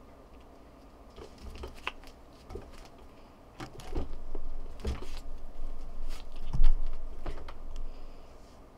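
Feather cat-teaser toy on a string being jiggled and flicked, giving a run of soft rustles and clicks that grow busier after about four seconds, with one louder knock about six and a half seconds in.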